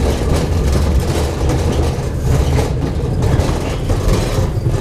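A loud, steady machine noise, deep and rumbling, like a motor running without a break.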